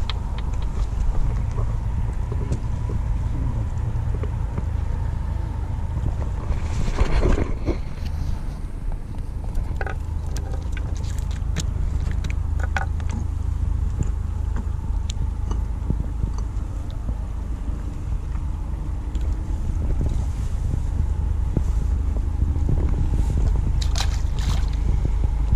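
Steady low rumble throughout, with scattered clicks and knocks as a fluke is handled and unhooked on wooden dock planks, and a splash near the end as the fish is dropped back into the water.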